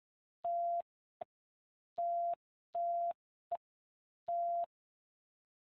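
Electronic beeps from a two-way radio: four beeps of about a third of a second and two very short blips, all on the same steady mid-pitched tone and unevenly spaced.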